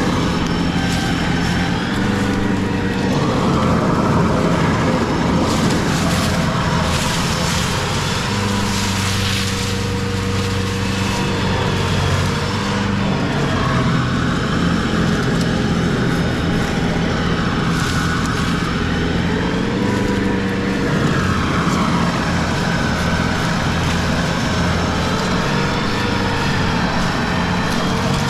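Large engine running steadily, its pitch shifting slightly now and then.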